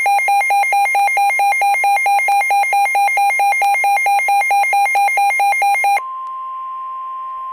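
Weather radio sounding a severe thunderstorm warning alert: a loud, rapid beeping alarm, about six or seven beeps a second. About six seconds in it switches to the broadcast's steady single warning tone over faint radio hiss.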